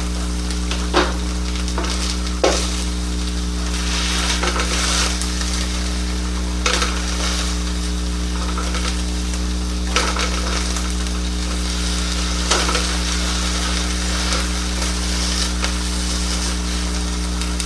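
Venison burger patties sizzling as they fry in a pan, a steady frying hiss over a low hum, with a few light clicks now and then.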